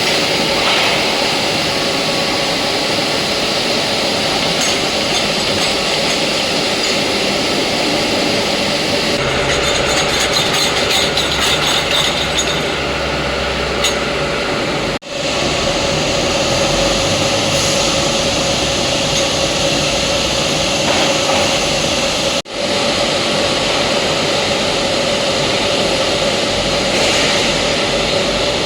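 Hydraulic concrete-slab press machinery running: a loud, steady mechanical hum with a constant whine, joined for a few seconds about a third of the way in by a fast metallic rattling and a deeper rumble. The sound breaks off abruptly twice for a moment.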